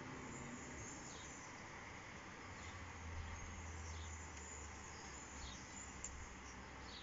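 Faint outdoor ambience: short, falling high chirps from a small bird about every second and a half over a steady background hiss and low hum.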